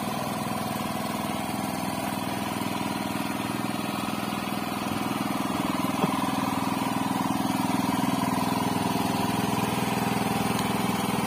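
Small engine running steadily at an even idle, growing a little louder from about halfway. There is one light knock about six seconds in.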